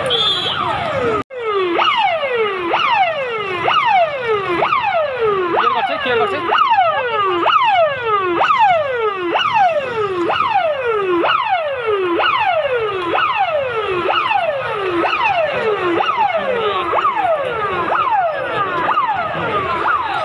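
Loud ambulance siren: a falling whoop repeated about once a second. The sound cuts out for a moment about a second in.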